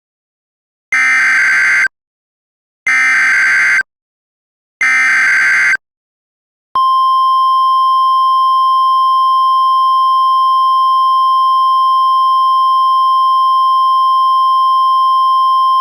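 Emergency Alert System header: three one-second bursts of buzzy SAME digital data, about two seconds apart, then the steady single-pitch 1050 Hz National Weather Service attention tone starting about seven seconds in. Together these signal an incoming weather alert, here a severe thunderstorm warning.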